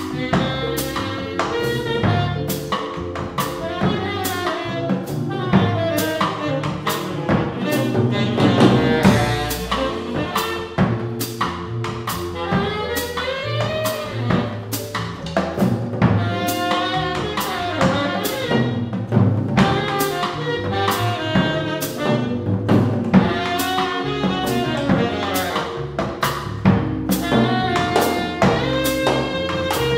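Small jazz combo playing live: a saxophone melody over keyboard, upright bass and drum kit, with cymbal strokes keeping a steady beat.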